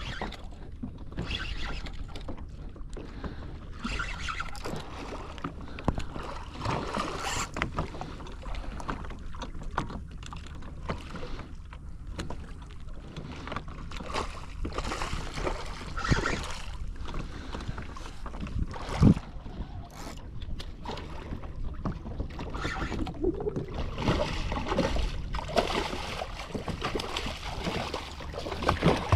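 Knocks, clicks and water sloshing on a fishing kayak while a small redfish is fought and landed, with one sharp knock about two-thirds of the way through.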